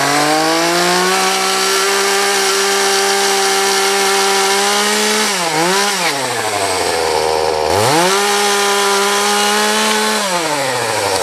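Chainsaw revving up and running at full throttle, its pitch wavering and dipping about halfway through, dropping almost to idle, then revving high again before falling off near the end.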